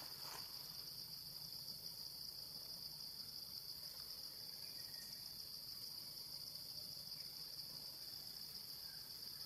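A steady, high-pitched drone of insects in the forest, running on without a break.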